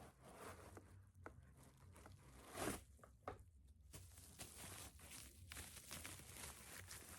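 Faint rustling and handling noise, with one louder rustle about two and a half seconds in.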